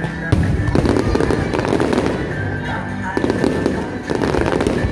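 Fireworks display: aerial shells bursting and crackling in rapid, continuous succession, with a sharp bang about a third of a second in.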